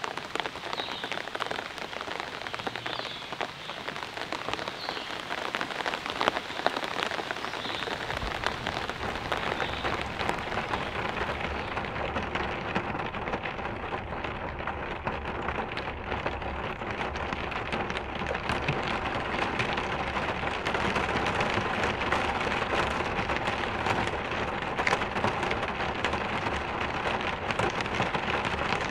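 Steady rain falling, the drops pattering on hard surfaces. A low steady rumble comes in about eight seconds in, and the rain gets a little heavier after that.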